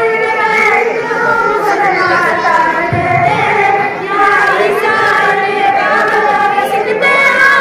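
Young girls singing a patriotic nazm together into a microphone, with long held, bending notes.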